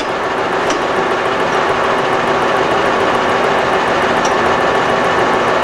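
Warner & Swasey 1A saddle-type turret lathe running with its saddle under rapid traverse: a steady, smooth mechanical hum with a few steady tones.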